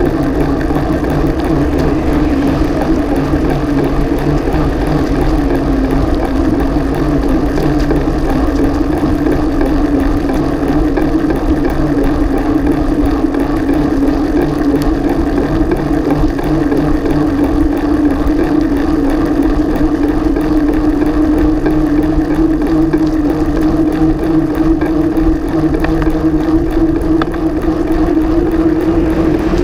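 Bicycle rolling along a tarmac path, heard from a camera mounted low on its frame: a steady hum that rises slowly in pitch as the bike gathers speed, over constant wind noise on the microphone.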